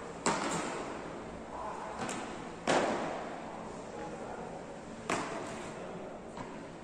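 Beach tennis paddles striking the ball in a rally: five sharp smacks a second or two apart, the loudest about three seconds in, each ringing briefly in a large hall.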